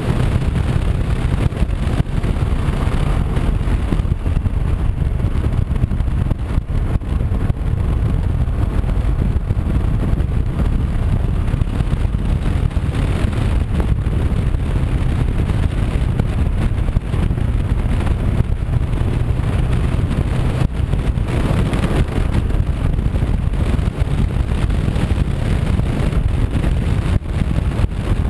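Honda CB500X motorcycle cruising at a steady speed: a constant rumble of wind buffeting the microphone and road noise, with the 471 cc parallel-twin engine running underneath.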